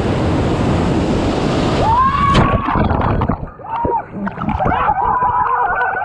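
Rafting through a whitewater rapid: loud rushing, splashing river water. About two seconds in, the sound suddenly turns muffled and gurgling, with wavering tones, as water washes over the raft's camera.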